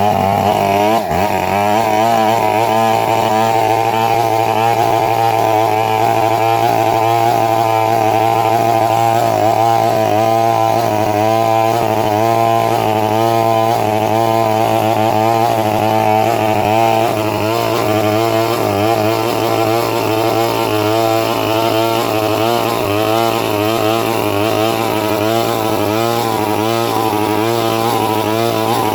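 Chainsaw running at high speed under load, cutting a coconut palm trunk, its engine pitch wavering up and down continuously as the chain bites.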